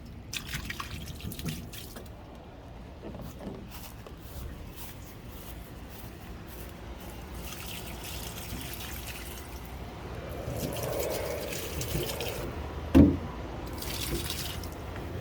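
Water dripping and trickling, with one sharp knock about 13 seconds in.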